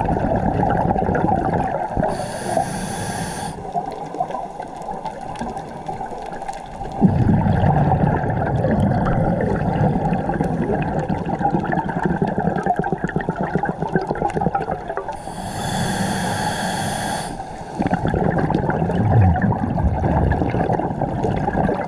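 A scuba diver breathing underwater through a regulator. Two sharp hisses of breathing in come a few seconds in and past the middle. After each one comes a long, low rumble of exhaled bubbles, over a steady watery background.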